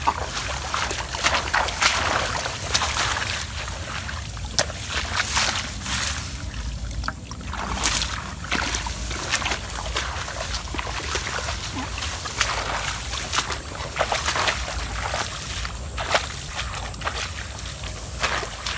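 Footsteps in rubber boots swishing and squelching through tall wet marsh grass, in an irregular tread of about one or two steps a second.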